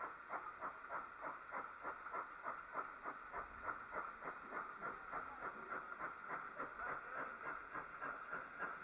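Collett pannier tank steam locomotive working at a steady pace, its exhaust beating in even chuffs about three times a second.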